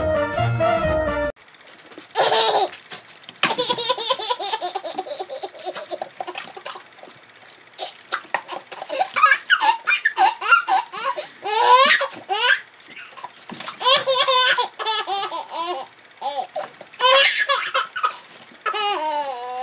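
A baby laughing in repeated fits of high-pitched laughter, with short pauses between them. A stretch of music cuts off about a second in, just before the laughter begins.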